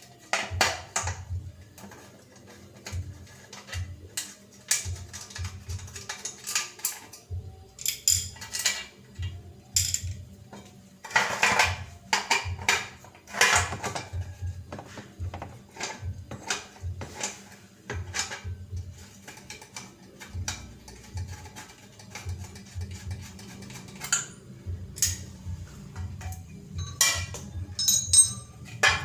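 Irregular metallic clinks, taps and knocks of tools and metal parts being handled while a single-tub washing machine's gearbox is taken apart, with a busier stretch of clatter in the middle.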